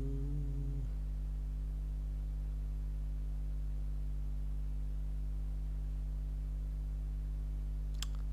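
Steady low electrical hum, a mains buzz picked up by the recording microphone, with a brief voiced hesitation in the first second and a single click about eight seconds in.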